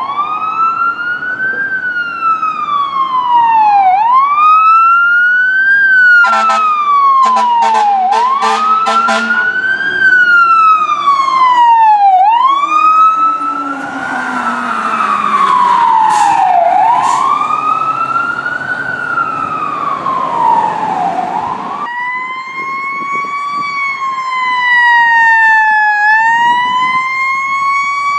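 Fire truck siren wailing, rising and falling about every four seconds, with a quick run of short horn blasts about a third of the way in. A second, denser siren sound overlaps it in the middle, and near the end a slower wail takes over.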